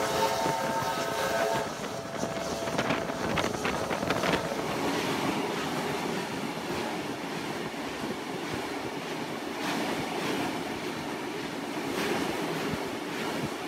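A steam locomotive whistle sounds a chord of several steady tones and cuts off under two seconds in. Then comes the steady rumble and clatter of a moving train's wheels on the rails, with a run of clanks a few seconds in, as passenger carriages pass close alongside.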